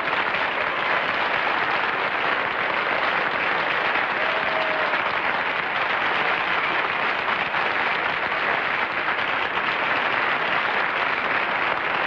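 Studio audience applauding steadily and heavily.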